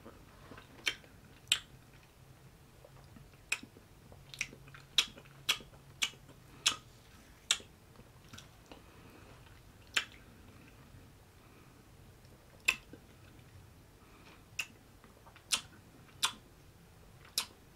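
A person eating ice cream off a metal spoon: about fifteen short, sharp wet mouth clicks and lip smacks at irregular intervals, some in quick runs, with quiet gaps between.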